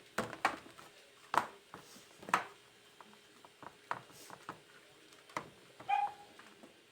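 Scattered soft knocks and clicks of pizza dough being stretched out with a rolling pin on a kitchen counter. A brief high squeak comes near the end.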